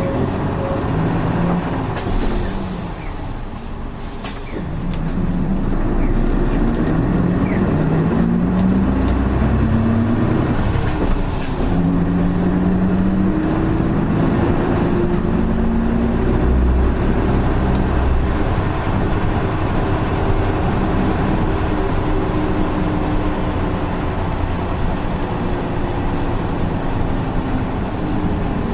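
Engine and drivetrain of a Hino PKG-RA274MAN city bus, heard from inside the cabin. After a short hiss about two seconds in, the bus pulls away, its engine and gear whine rising in pitch, then settles into a steady run. This unit's engine note differs from other buses of the same type.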